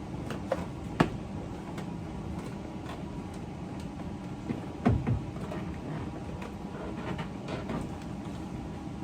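A car's interior door card being pried and worked loose from its clips and the top of the door: a sharp click about a second in, a dull knock about five seconds in, and lighter clicks and scrapes of the board and plastic clips in between.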